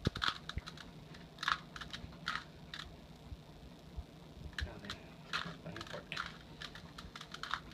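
Plastic Rubik's Cube layers being twisted by hand: irregular clicks and short clattering turns, a few spaced out with pauses between them.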